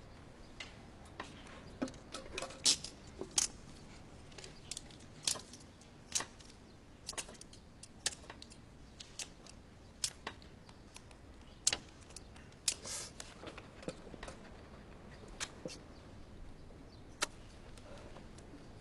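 Quiet exam room with scattered light clicks and taps at irregular intervals, plus a few short scratchy strokes, from pencils writing on paper and being tapped or set down on wooden desks.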